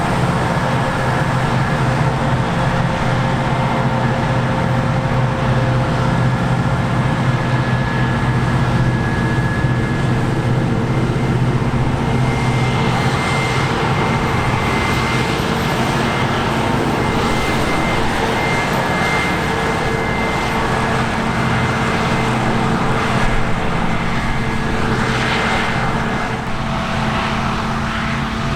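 Diesel engines of harvest machinery running steadily, with a steady high-pitched whine through the middle.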